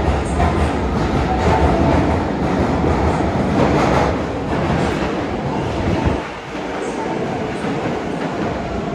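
Osaka Metro subway train moving along the platform: a steady rumble of wheels and motors with wheel clatter. The rumble drops off sharply about six seconds in, leaving a quieter steady noise.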